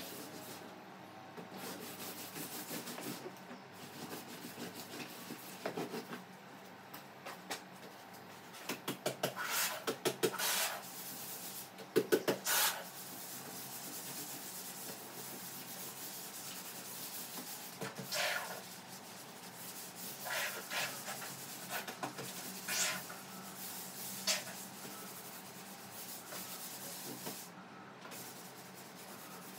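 Hand cleaning: cloth and bedding rubbed and rustled in short bursts of quick strokes, the busiest about a third of the way in. In the second half a cloth is wiped back and forth over a small table top in brief bursts.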